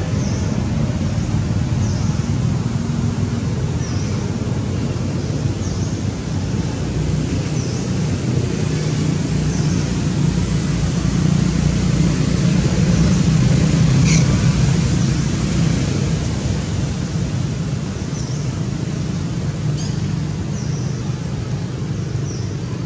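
Steady low outdoor rumble, like wind on the microphone, with short high chirps repeating every second or two and a single sharp click about fourteen seconds in.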